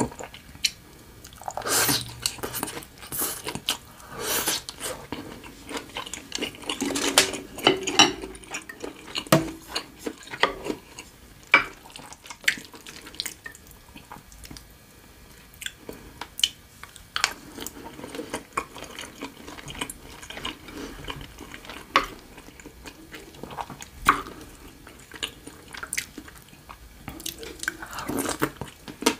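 Close-miked wet chewing and mouth sounds of eating pad see ew, soft stir-fried wide rice noodles with Chinese broccoli, made up of irregular wet smacks and clicks.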